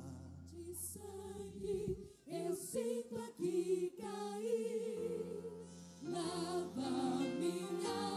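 Choir and female vocalists singing a gospel song with instrumental backing. A held low bass note drops out about two seconds in, leaving the voices nearly alone, and comes back about five seconds in.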